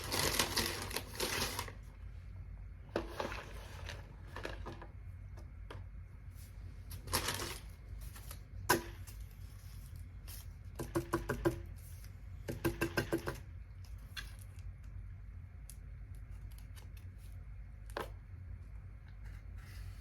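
Paper and wrapper packaging of takeout food being handled and opened: several bursts of rustling and crinkling, two quick runs of crackling ticks, and a few sharp clicks.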